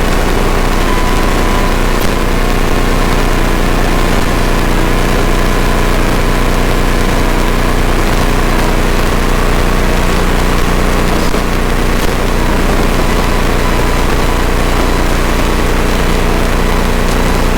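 Flight Design CTLSi light sport aircraft's Rotax 912 iS engine and propeller droning steadily, heard in the cockpit.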